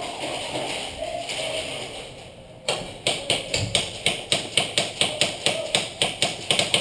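Airsoft gun firing rapid single shots, sharp snapping clicks at about five a second, starting about three seconds in; before that only a steady hiss.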